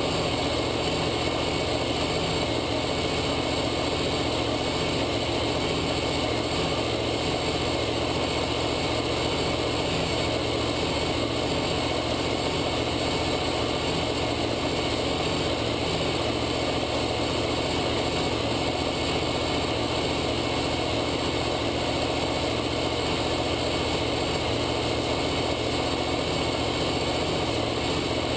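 V8 race engine on an engine dyno, idling steadily with no revving.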